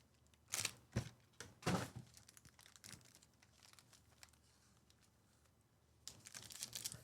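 Trading card pack wrappers crinkling and tearing: a few short rips in the first two seconds, then a longer spell of crinkling near the end.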